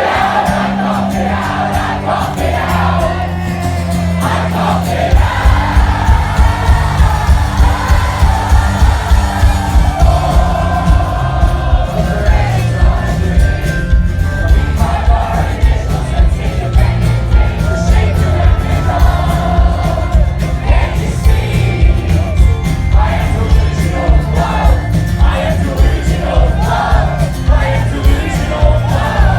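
Indie rock band playing live, loud, with a lead vocal and the crowd singing along; the full drum beat comes in about five seconds in.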